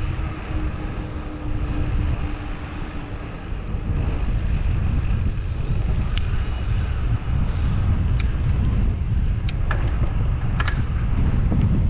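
Wind rumbling on the microphone of a bicycle-carried camera while riding along a wet paved road. The rumble is steady, with a few sharp clicks in the second half.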